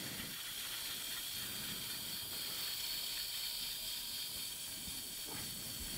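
Powered peripheral reamer turning slowly against the glenoid face, preparing the bone seat for the base plate. It gives a steady, faint high hiss with no change through the stretch.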